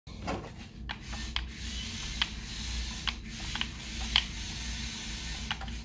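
Small Lego combat robot's electric motors and plastic gears whirring with a gritty hiss as it drives over a concrete floor, with scattered sharp clicks. The whir cuts off suddenly at the end.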